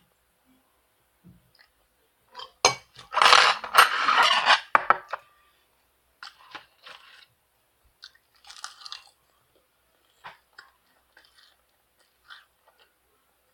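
Someone chewing crunchy food: a dense run of loud crunches from about three to five seconds in, then softer, scattered crunches.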